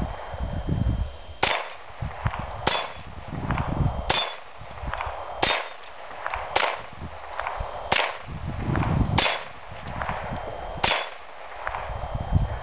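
Ruger Mark III Target .22 pistol fired in slow single shots, about eight in all, roughly one every second and a half, some with a faint metallic ring.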